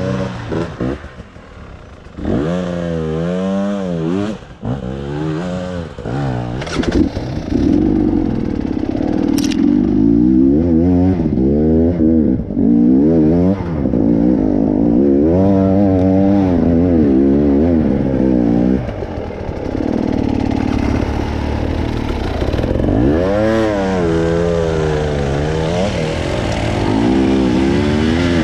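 Off-road vehicle engine revving hard and dropping back again and again under load, with a few knocks and clatter in the first seconds.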